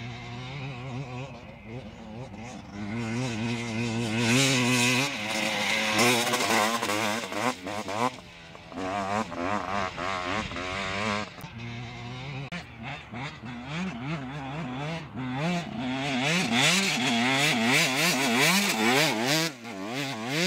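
Off-road dirt bike engines revving under load, the pitch jumping quickly up and down as the throttle is worked. The sound grows loud a few seconds in, falls back around the middle, and builds again toward the end.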